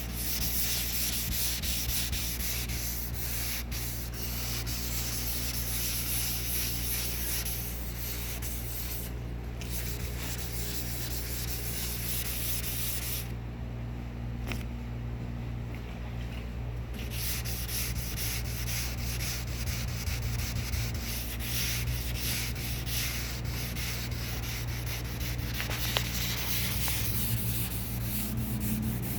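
Sanding on a car's painted body panel, rubbing steadily to work out a deep key scratch, with a pause of a few seconds about midway.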